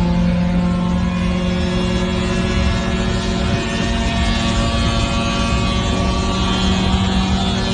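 A motor running at a steady pitch, a continuous drone with rough low rumble.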